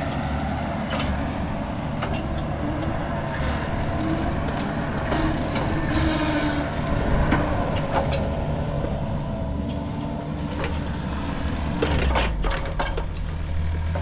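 Mini excavator running steadily, with scattered clicks and knocks over the engine hum.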